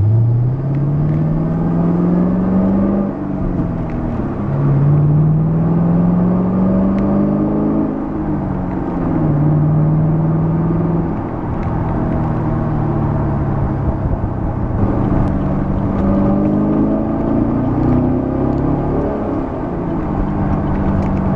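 Chevrolet Camaro SS's 6.2-litre LS3 V8 heard from inside the cabin while accelerating through the gears of its manual gearbox. The engine pitch climbs, then falls away at each upshift, about four times, with a steady cruising stretch between pulls.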